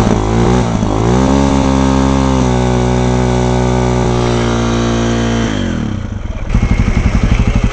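KTM enduro motorcycle engine revved up and held at high revs for several seconds, then dropping back about six seconds in to a low, even putter.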